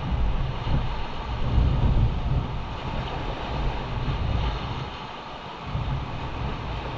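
Wind buffeting the microphone in gusts, over the steady wash of surf on a rocky shore. The wind rumble eases about five seconds in.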